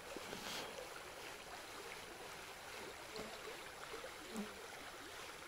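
Faint, steady rushing of a river current over shallows.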